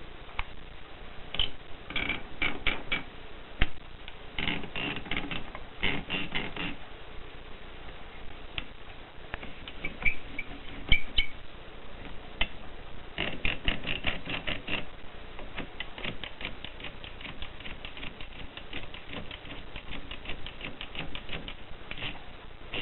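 Mercedes Prima typewriter being typed on: type bars striking in short irregular clusters, then a fast, even run of keystrokes in the second half, with a few louder single knocks in between.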